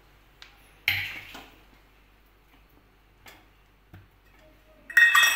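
Metal kitchen utensils knocking and clinking: a sharp knock about a second in, a few faint ticks, then a loud cluster of ringing metal clinks near the end.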